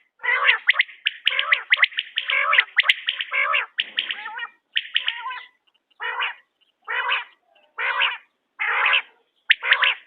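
Quail calling: a dense run of rapid calls for about four seconds, then single calls of about half a second each, coming roughly once a second.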